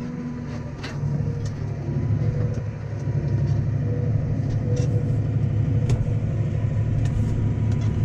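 Blue New Holland tractor's diesel engine running steadily under load while pulling a reversible plough, heard from inside the cab; it gets a little louder about a second in. A few light, sharp knocks come through now and then.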